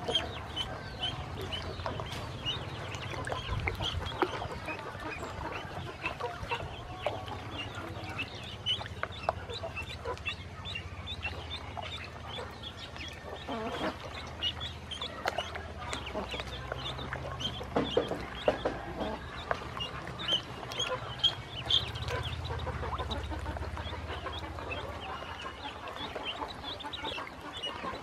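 Many ducklings peeping constantly, with small splashes and dabbling as they swim in a shallow plastic tub of water.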